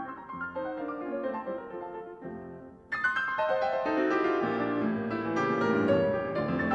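Background piano music. About three seconds in it breaks off and a louder passage starts abruptly.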